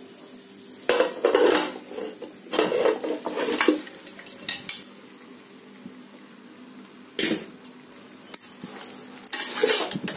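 Metal kitchenware clattering: a steel bowl and utensil knock and scrape against an aluminium pressure cooker as marinated chicken pieces are tipped in, in several separate bursts of clanks and scrapes.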